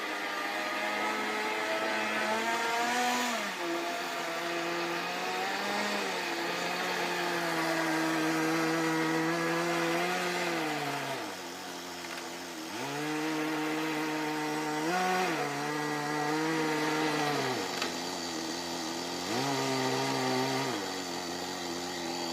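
Small nitro glow engine of a Kyosho Nitro Blizzard RC snowcat running, its buzzing pitch rising and falling as it is throttled up and down. It drops to a lower idle twice, about 11 seconds in and again near 18 seconds, then revs up again.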